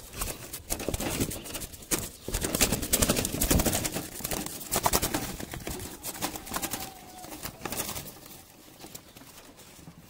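Irregular knocking and clattering at a wire-mesh pigeon cage while a hand reaches in among the birds. The knocks are dense for the first six seconds, then thin out and grow quieter.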